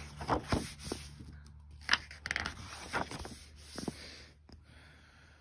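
Paper pages of a picture book being turned by hand: a series of short rustles and flaps that die away after about four seconds.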